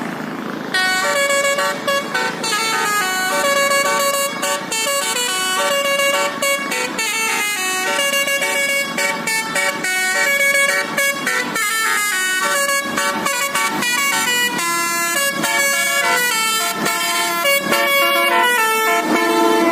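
Basuri telolet bus air horns playing a fast multi-note melody, bright held notes jumping from pitch to pitch, starting about a second in.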